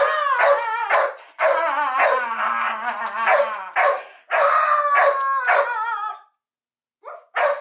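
Dog barking and howling in long, wavering cries. It breaks off about six seconds in, then gives a few short barks near the end.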